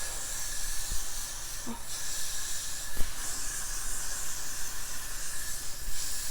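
Aerosol hair spray hissing from a can in long, continuous sprays, with a short break about two seconds in.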